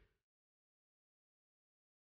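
Digital silence: the soundtrack is muted, with only the last trace of the preceding audio dying away in the first instant.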